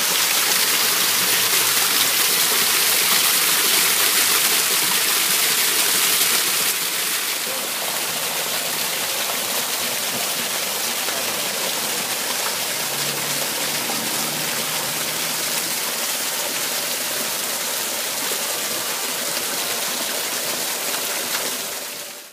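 Man-made garden waterfall: water spilling over rock boulders and splashing into a shallow pool, a steady rushing splash. It drops a little in loudness about seven seconds in and cuts off at the very end.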